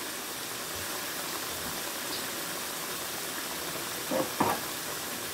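Diced chicken and onions simmering in a frying pan of soy sauce and their own juices: a steady sizzle. Two light knocks about four seconds in.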